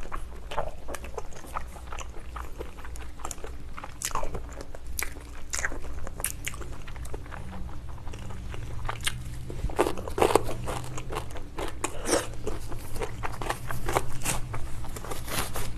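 Close-miked eating of spicy braised ox foot: chewing and biting, with irregular sharp crunchy clicks from the mouth and a few louder ones past the middle.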